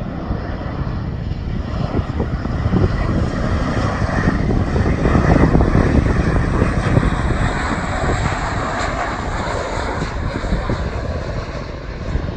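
Twin-engine jet airliner on final approach passing the observer: a steady jet engine roar that swells to its loudest about five to seven seconds in, then slowly fades.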